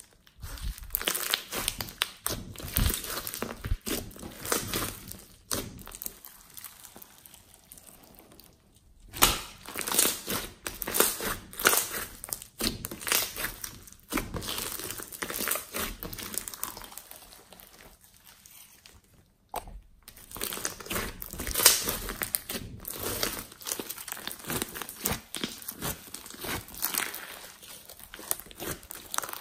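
Glossy slime studded with small beads being squeezed, pressed and stretched by hand: dense runs of clicking and crackling pops, in bursts with a few short pauses between handfuls.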